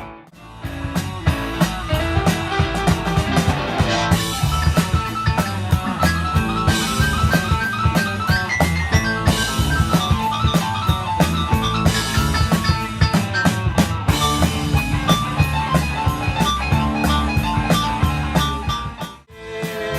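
Rock band playing an instrumental passage on drum kit and guitar, with no singing. The sound drops out briefly just after the start and again about a second before the end.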